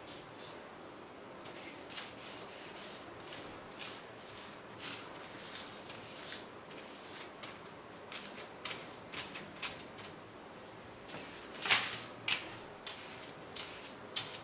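Silicone pastry brush and hand rubbing over butter-coated printer paper sheets: irregular paper swishes and rustles, a few strokes a second, with a couple of louder strokes about twelve seconds in. The sheets are being pressed together so the second sheet picks up the excess butter.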